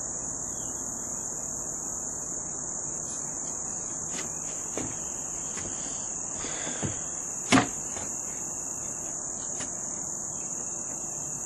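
Steady high-pitched chorus of insects, with a few short sharp clicks, the loudest about two-thirds of the way in.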